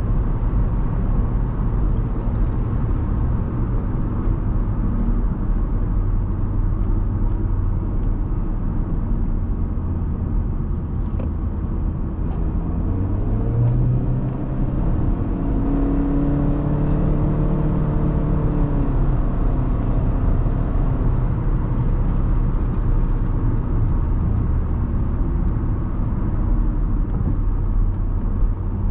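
Road and engine noise inside the cabin of a 2016 Honda Civic driving at speed: a steady low rumble of tyres and engine. Around the middle, an engine hum rises and then falls in pitch as the car slows and picks up speed again.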